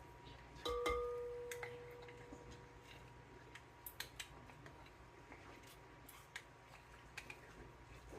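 A utensil or measuring cup strikes a metal mixing bowl about a second in, with a clink that rings and fades over about two seconds. Scattered light taps and clicks follow as honey is scraped out into the bowl.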